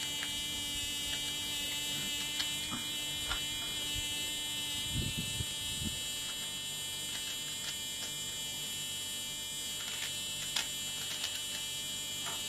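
A steady appliance-like hum with a high whine, under a few faint scrapes and taps as a turnip is hollowed out.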